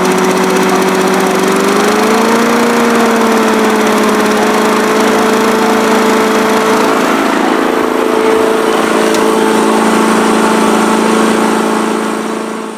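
Victa petrol rotary lawn mower engine running loudly and steadily. Its note rises about two seconds in as it speeds up, and the sound fades out near the end.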